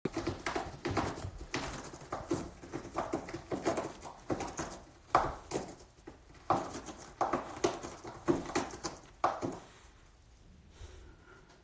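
A cat scratching and treading on a carpeted cat tower: a quick, irregular series of rasping, knocking strokes that dies away near the end.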